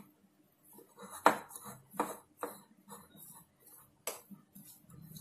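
A hand mixing grated potato and flour for pakora batter in a bowl: irregular clicks and taps against the bowl, a few of them sharp.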